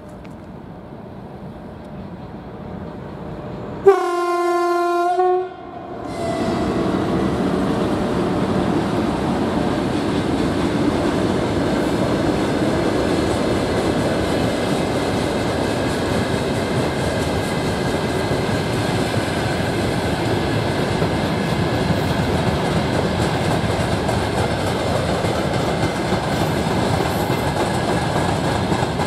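An electric freight locomotive's horn gives one steady blast of about a second and a half, about four seconds in. A freight train of covered hopper wagons then rolls past close by, with a steady loud noise of wheels on rails.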